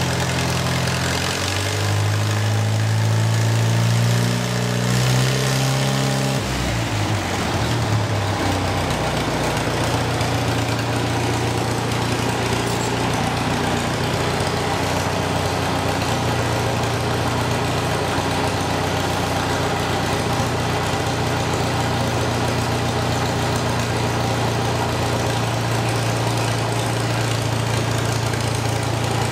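Farmall 140 tractor's four-cylinder C-123 gasoline engine running through a straight exhaust pipe, its governor reworked to run stronger. It runs faster and louder for the first several seconds, drops back about seven seconds in, then settles into a steady run.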